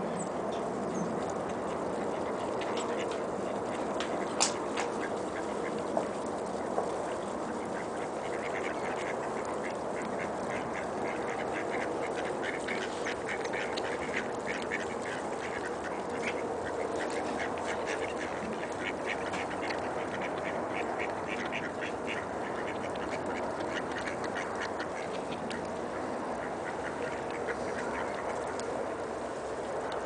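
Mallard ducks quacking, a rapid run of short calls through the middle stretch, over a steady background hiss. A few sharp clicks about four to seven seconds in.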